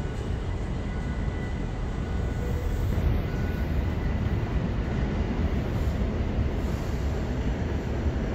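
Subway train approaching on the track, a steady low rumble growing slightly louder as it nears.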